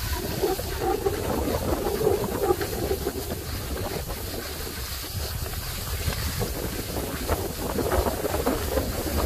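Wind noise on the microphone from skiing downhill, with skis sliding and scraping over groomed, packed snow.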